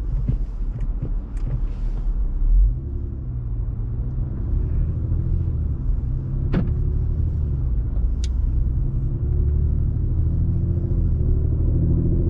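Audi RS4 Avant's engine running steadily at low revs as the car sets off and rolls slowly. A couple of sharp clicks sound partway through, and the engine note rises slightly near the end.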